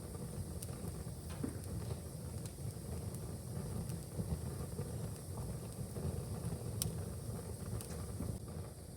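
Wood fire in a fireplace crackling: a steady low rumble of flames with scattered sharp pops and snaps, one louder pop about two-thirds of the way through.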